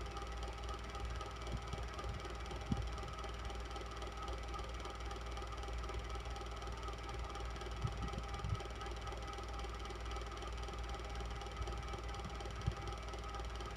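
Electric fan running steadily: a constant whir with a low hum and a few steady tones. A few brief soft low thumps come and go, about three seconds in, around eight seconds in and near the end.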